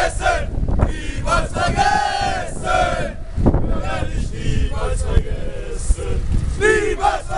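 Crowd of mostly male football supporters chanting and singing together as they march, with a steady low rumble beneath and a single sharp knock about three and a half seconds in.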